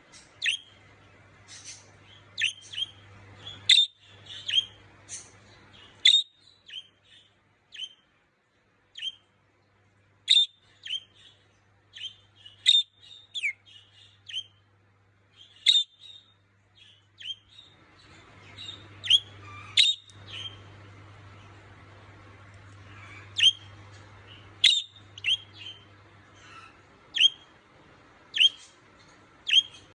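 Budgerigar calling for its companion: short, sharp, high chirps repeated at irregular intervals, often one or two a second. A faint low steady hum sits underneath.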